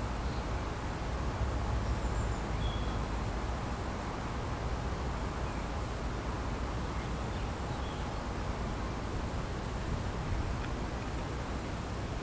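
Countryside ambience: a steady low rumble and hiss, with insects buzzing and a few faint, short bird chirps.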